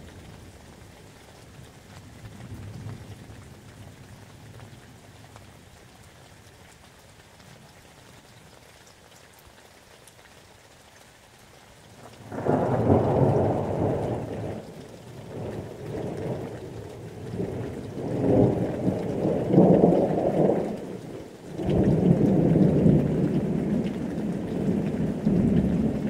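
Thunderstorm: rain falling steadily, with a faint rumble of thunder a couple of seconds in. About twelve seconds in, loud rolling thunder sets in and rumbles on in waves, drops away briefly near the end, then comes back in a final long peal.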